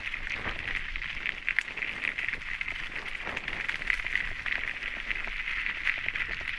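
Mountain bike rolling over a loose gravel fire road: a steady crackling hiss of the tyres on the stones.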